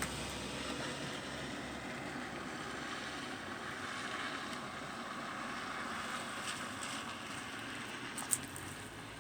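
A gust of wind rushing outside the open door, swelling at the start, holding steady and easing off near the end, with a single sharp click about eight seconds in.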